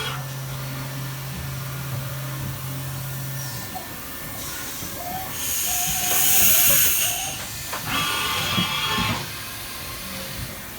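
Haas VF-2 CNC vertical machining center running: a steady hum for the first few seconds, then bursts of hissing and whining, the loudest about two-thirds of the way through.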